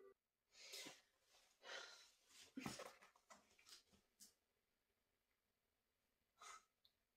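Faint rustle of bedding and soft breaths as a person shifts on a bed and props herself up: a few soft swishes over the first four seconds and one more near the end.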